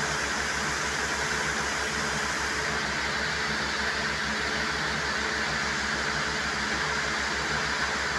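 Compressed air blasting muddy water up out of a borewell casing in a steady, gushing rush. Under it runs the low, evenly throbbing drone of the engine driving the high-pressure air compressor: the borewell is being flushed clean.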